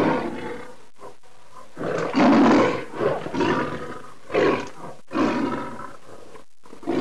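A lion's roar like the one in the MGM film-studio logo, in about six roars and growls. The loudest and longest comes about two seconds in.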